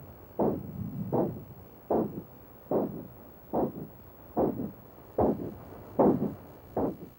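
Recorded womb sound of a pregnant mother: rhythmic whooshing pulses of blood flowing into the placenta, a choo-choo train type sound, about five pulses every four seconds like a slow heartbeat.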